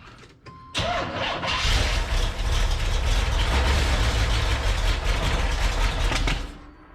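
Corvette engine cranking on the starter for about six seconds without catching, then stopping. The car won't start, which the owner puts down to a fuel-delivery problem at the carburetor.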